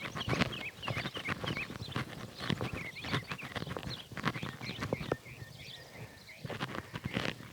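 A horse's hooves stepping and shifting on hard ground: irregular knocks and clops. Small birds chirp repeatedly in the background, most clearly in the second half.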